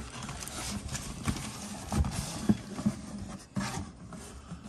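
Cardboard scraping and rustling as a boxed item is pulled out of a cardboard shipping carton, with a few soft knocks and thumps from the boxes as they are handled and set down.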